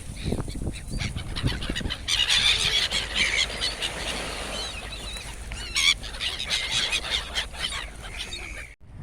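A flock of gulls crying and squealing, many short calls overlapping, thickest from about two seconds in, over a steady low rumble. The sound breaks off abruptly near the end.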